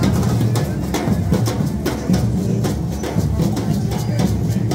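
Samba drum corps marching and playing: deep surdo bass drums struck with mallets, layered with dense, rapid drum strokes in a steady rhythm.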